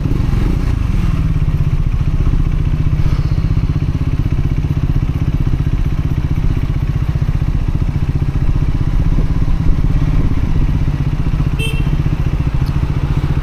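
Triumph Scrambler 400X's single-cylinder engine running at a steady cruise, with little change in revs, while the new engine is being run in. A brief tick comes near the end.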